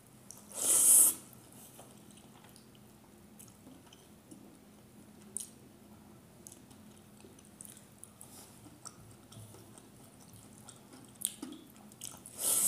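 Slurping a handful of wet rice soaked in rice starch water from the fingers: a short loud slurp about half a second in and another near the end, with faint small clicks of eating between.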